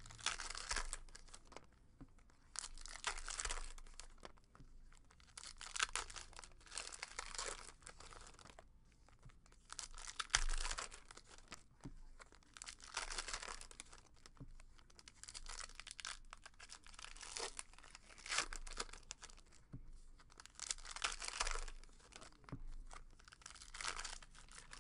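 Baseball card packs being torn open, their wrappers crinkling in repeated bursts every second or two.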